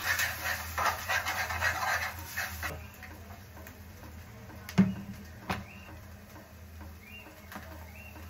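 Kitchen handling noises by a gas stove: a flickering hiss that cuts off after a couple of seconds, then one sharp knock about five seconds in and a lighter click just after, with a few faint high squeaks. A steady low hum runs underneath.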